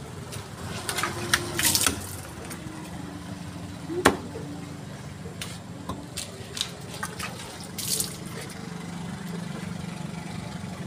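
Cleaver chopping chicken on a round wooden chopping block: a quick run of hard knocks about a second in, the loudest single chop about four seconds in, then a few lighter knocks. A steady background hum runs underneath.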